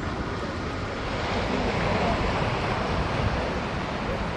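Airbus A330-900's Rolls-Royce Trent 7000 turbofans running at taxi power: a steady rush of jet noise that swells slightly about a second in, mixed with wind on the microphone.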